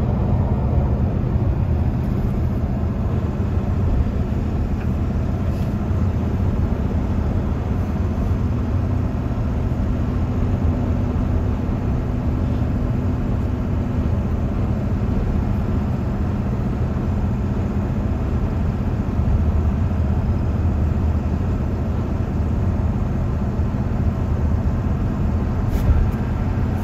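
Steady road and engine noise heard inside a moving car's cabin: a continuous low drone of tyres and engine at cruising speed, with a faint hum that drops out about halfway.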